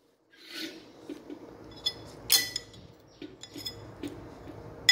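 A metal spoon clinking against a ceramic bowl several times, with light scraping between the clinks. The loudest clinks come a little after two seconds in and at the very end.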